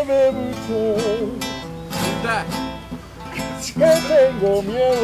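Acoustic guitar strummed as accompaniment to a man singing a slow serenade, his voice wavering with vibrato. The singing pauses briefly mid-way while the guitar carries on, then comes back in.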